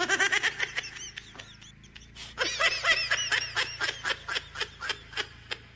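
Laughter in two bouts of quick, repeated ha-ha pulses. The first fades out after about a second and a half; the second, louder one starts about two and a half seconds in and cuts off suddenly near the end.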